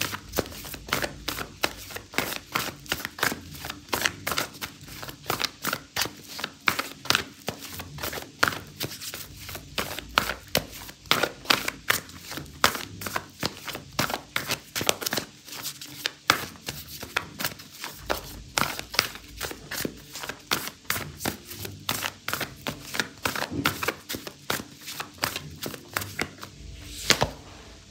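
An oracle card deck being shuffled by hand: a long run of quick, irregular card clicks and taps.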